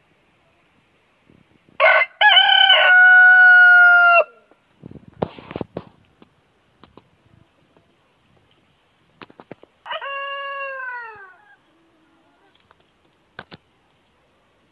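Rooster crowing twice: a loud crow of a few short notes and a long held note about two seconds in, then a shorter crow that falls in pitch about ten seconds in. Faint clicks fall between the crows.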